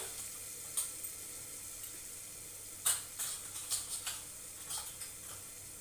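Tomato masala with ground spices frying in oil in an open aluminium pressure cooker: a steady soft sizzle, broken by half a dozen short sharp clicks. The masala has cooked down to where the oil has separated.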